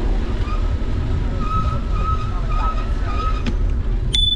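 Steady low rumble of wind on the microphone and tyres rolling over pavement while riding a bicycle. From about half a second to three and a half seconds in there is a faint thin squeal. Just before the end a clear high ringing tone with sharp clicks begins.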